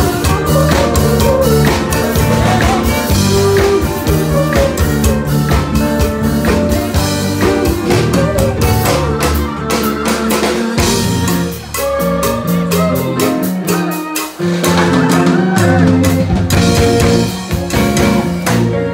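Live band playing an up-tempo number with drum kit and bass under pitched instruments. About eleven seconds in, the bass and drums drop out and the sound thins for a few seconds, then the full band comes back in.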